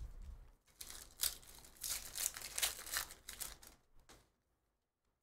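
Foil trading-card pack wrapper crinkling and tearing as a pack of Panini Phoenix football cards is handled and ripped open by hand, in a run of irregular crackles that stops about four seconds in.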